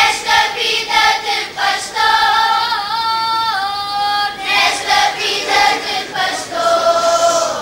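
Children's choir singing cante alentejano unaccompanied, with long held notes. The voices come in loudly at the start, step down in pitch, break off briefly after about four seconds, and carry on.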